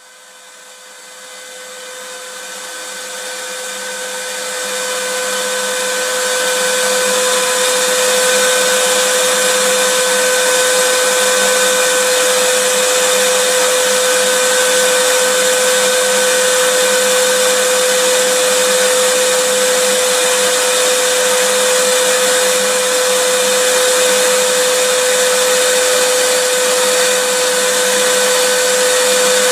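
Vacuum cleaner running steadily: a loud hiss with one steady whining pitch under it, fading in over the first several seconds and then holding level.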